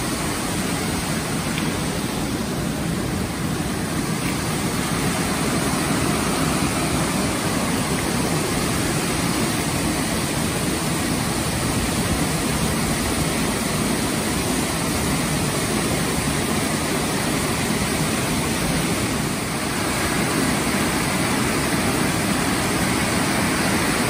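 Waterfall rushing: a steady, even noise of falling water that does not change.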